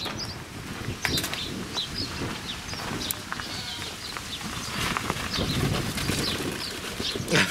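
Small birds chirping in short repeated notes over the soft scuffle and patter of a flock of sheep trotting on a dirt lane.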